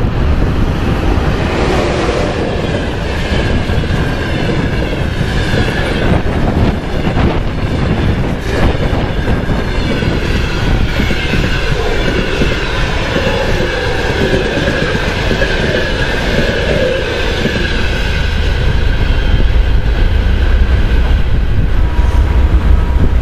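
EP1M electric locomotive and its passenger coaches passing at speed, the wheels rolling and clattering over the rail joints. A low rumble grows louder near the end.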